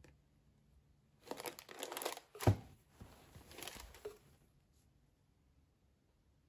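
Packaging rustling and crinkling as a folded cotton T-shirt is pulled out of a box and held up, for about three seconds, with one sharp thump about two and a half seconds in.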